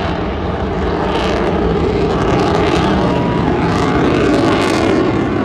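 Eurofighter Typhoon jet flying a display pass: a loud, steady jet roar that swells a little in the second half.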